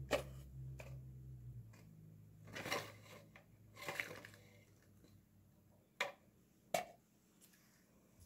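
Metal kitchen tongs clicking and a small foam cup rustling against a paper bag as the cup is picked up and tipped in: two short rustling scrapes in the middle, then two sharp clacks near the end.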